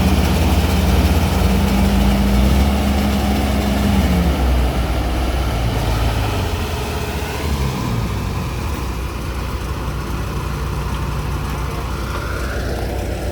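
Farm machinery engine running steadily. Its pitch shifts and drops between about four and eight seconds in, and then it settles, a little quieter.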